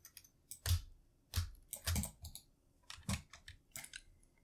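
Computer keyboard keys and mouse clicking in a string of irregular sharp taps, a handful over a few seconds, some with a slight thud.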